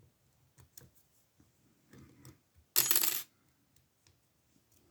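A few faint clicks, then about three seconds in a brief loud clatter of small metal lock-picking tools clinking together.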